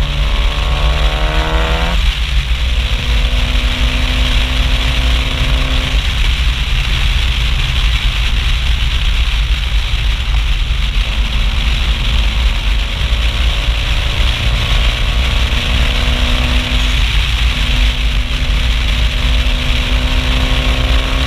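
Mitsubishi Lancer Evolution IV's turbocharged four-cylinder engine and loud exhaust heard from outside the car while driving. The revs rise in the first two seconds, then the engine holds a steady note, fading out about six seconds in and coming back steady in the second half. Steady wind and road rush runs underneath.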